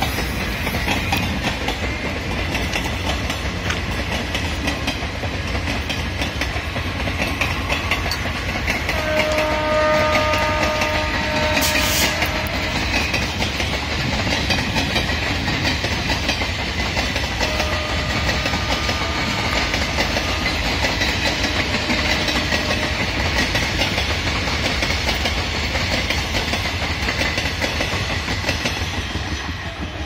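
Blue Indian Railways passenger coaches of an express train rolling past at speed, wheels clattering steadily over the rails, fading near the end as the train draws away. Faint held horn notes sound in the distance about ten seconds in and again around twenty seconds.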